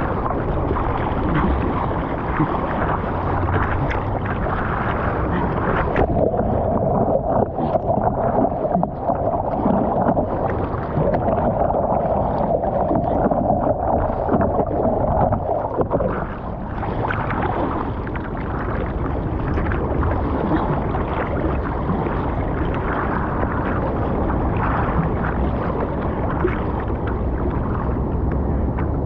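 Sea water rushing and sloshing right at the microphone in the surf, continuous and muffled, with a steadier, stronger stretch from about six to sixteen seconds in.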